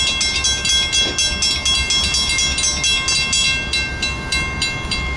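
Railroad grade crossing warning bell ringing rapidly and evenly, with a steady metallic ring behind each strike, stopping near the end; a low rumble runs underneath.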